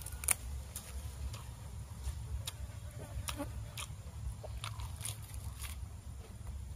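Fresh leafy greens being torn and handled, giving scattered crisp snaps and crackles, the sharpest about a third of a second in, over a steady low rumble.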